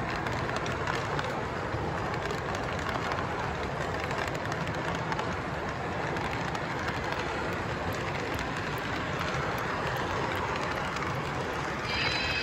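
O-gauge model freight train cars rolling past on three-rail track: a steady rumble and clatter of the wheels. Near the end a few high ringing tones come in.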